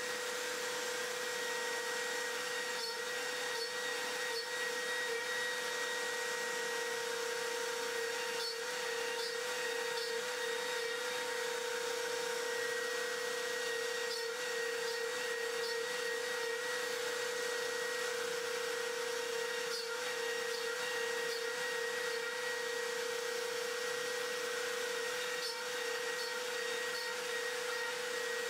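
Makita trim router spinning at full speed as the CNC router's spindle, cutting an MDF spoil board under G-code, with a steady high whine over a constant rush of cutting noise.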